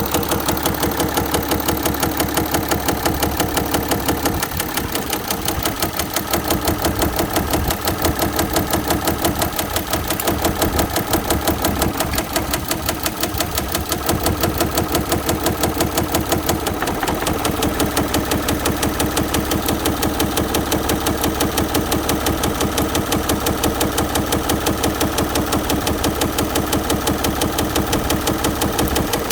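Audi car engine running with a steady, rapid knocking from the bottom end: rod knock, a worn connecting-rod bearing.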